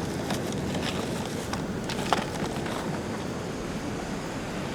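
Steady wash of ocean surf and wind at a rocky shore, with a few light clicks, the sharpest about two seconds in.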